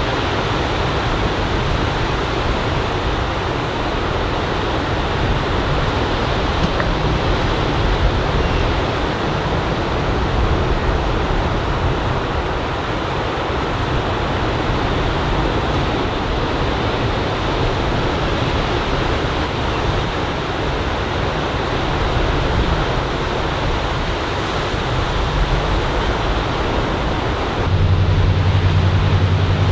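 Steady wash of ocean surf breaking on a beach, heard as an even hiss. A low steady hum joins it near the end.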